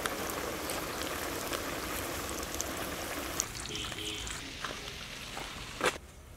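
Floured chicken leg pieces deep-frying in hot oil in a kadai: a steady sizzle with scattered crackles. A sharp click comes near the end, after which the sizzle falls away to a much quieter hush.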